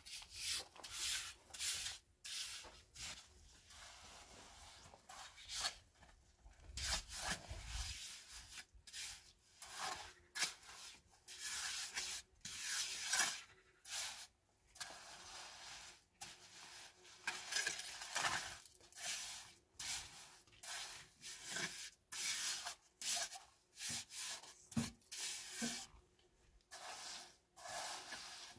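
Repeated rough scraping strokes, about one a second and uneven in strength.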